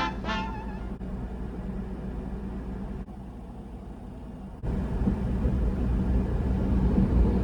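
Kei truck driving: low engine and road rumble, which gets abruptly louder and rougher about four and a half seconds in.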